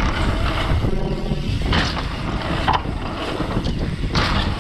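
Wind buffeting the microphone and the rattle of a mountain bike descending a rough trail, with sharp knocks as it goes over bumps and a brief buzz about a second in.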